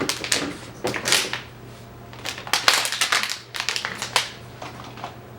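Thin, cheap plastic water bottle crinkling and crackling as it is squeezed and handled by hand, in irregular runs of crackles with the loudest a little under three seconds in.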